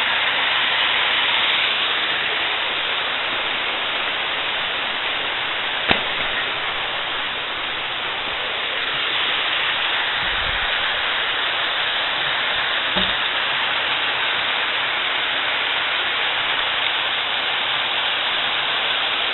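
Steady rushing of a small waterfall pouring into a deep creek pool, with a single sharp click about six seconds in.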